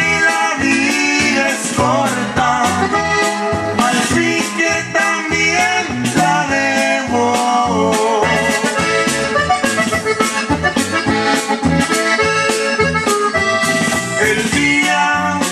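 Accordion-led Latin dance music with a steady beat, played loud through a party sound system.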